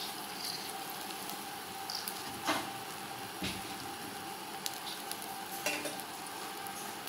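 Egg omelette frying in hot oil in a wok: a steady sizzle, with a fork tapping and scraping against the wok a few times.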